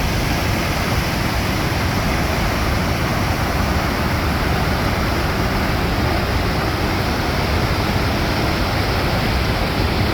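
Fast, turbulent water rushing powerfully, a loud noise that holds steady throughout.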